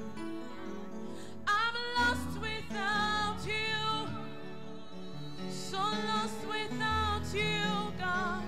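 A woman singing a slow gospel worship song into a microphone over live band accompaniment, her sung phrases starting about a second and a half in and coming in short lines with a wavering pitch.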